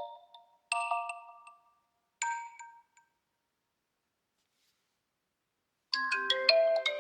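OnePlus 12 ringtones playing: bell-like mallet chords strike and ring out, the last dying away about three seconds in. After a silent gap, another ringtone starts near the end with quicker notes and lower, held tones.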